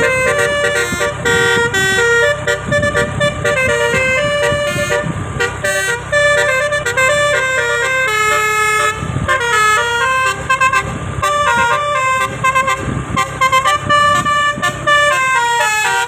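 Telolet bus horn, a set of roof-mounted air-horn trumpets, played without letup: several notes sound together and step quickly up and down like a tune. A low rumble runs underneath.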